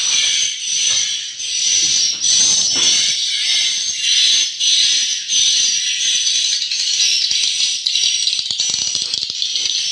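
Swiftlet roosting lure call ('suara inap') played through tweeter speakers: a dense, continuous high-pitched chattering twitter of swiftlets with a steady high whistle running through it.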